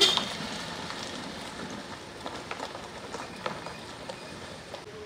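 A car rolling slowly over loose gravel: a steady crunch of tyres on stones with scattered pops and clicks, loudest in a sharp crunch right at the start.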